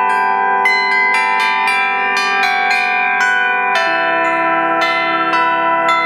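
Church bells playing a melody: a quick, even run of struck bell notes, about four a second, each ringing on into the next, with a lower bell joining about two-thirds of the way through.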